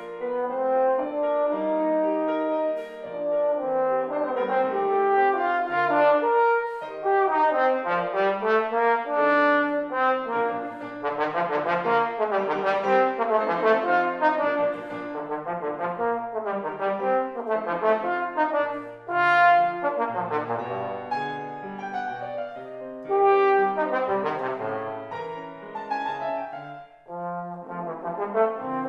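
Trombone playing a lyrical melody with grand piano accompaniment, with a few short breaks between phrases.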